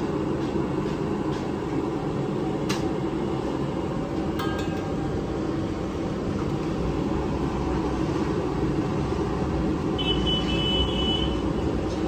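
Steady low rumble of the griddle stall's burner and surroundings. Over it come a couple of sharp clicks from eggshells being cracked open over the hot iron griddle. About ten seconds in there is a short, high, steady tone.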